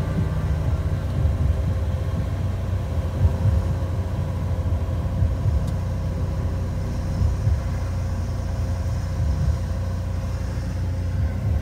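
Single piston engine and propeller of a Cessna 182, heard from inside the cockpit as a steady low drone at reduced power on the landing approach.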